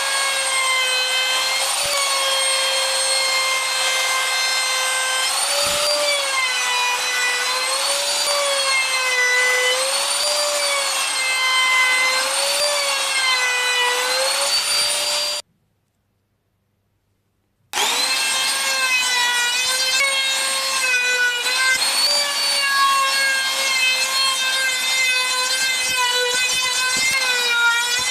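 Handheld trim router with a roundover bit running at a high, steady whine, the pitch dipping briefly every couple of seconds as the bit bites into the plywood edge. The sound cuts out abruptly about halfway; after two seconds of silence the router spins back up and runs again as it routes the edge of a speaker cutout.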